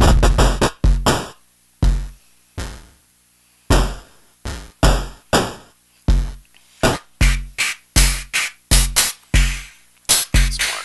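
Analog eurorack drum patch playing an irregular pattern: unfiltered hi-hats made straight from a vcNOIZ voltage-controlled noise module, with an analog bass drum thumping under many of the hits. A dense wash of noise cuts off about a second in, and the hits come unevenly spaced after it, as set by a random gate.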